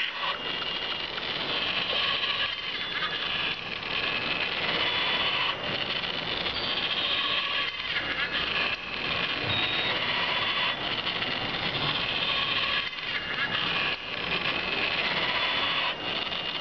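Motor-driven rocking mechanism of a small model baby cradle running, a steady mechanical rattle and clatter from its drive and threaded-rod linkage, dipping briefly every few seconds.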